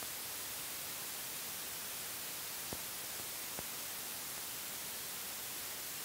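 Steady hiss of an old film soundtrack between narration lines, with two faint clicks a little under a second apart past the middle.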